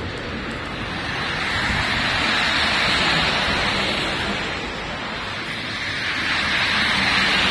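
City buses and cars passing on a wet road, their tyres hissing through the water. The hiss swells twice, about three seconds in and again near the end, as vehicles go by close.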